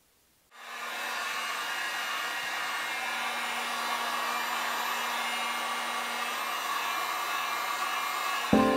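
Electric heat gun switched on about half a second in, its fan blowing steadily with a faint low hum, warming the epoxy clear coat on a lure.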